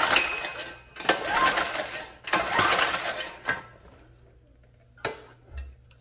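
Recoil pull-starter of a Coleman 100cc mini bike engine pulled three times, each pull cranking the engine over for about a second with the spark plug out and grounded against the engine to check for spark.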